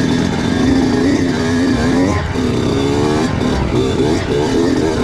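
Kawasaki KX85 two-stroke motocross bike engine revving up and down as the throttle is worked, with a brief drop in revs a little over two seconds in.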